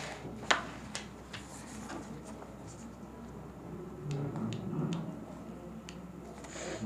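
Pen writing on paper at a desk, with one sharp click about half a second in and a few faint ticks later.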